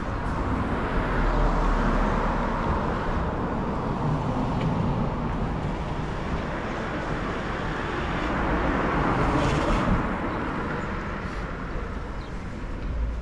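Road traffic: the steady noise of motor vehicles going by, swelling as a vehicle passes about a second in and again around nine seconds in.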